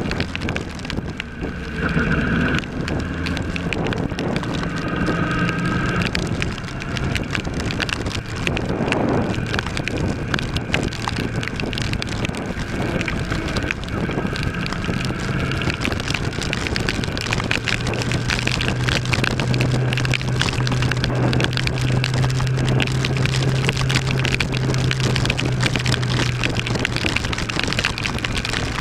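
A 2013 Kawasaki ER-6's parallel-twin engine running on the move, under a steady rush of wind and rain noise. The engine note shifts during the first few seconds, then holds one steady pitch at cruising speed through the second half.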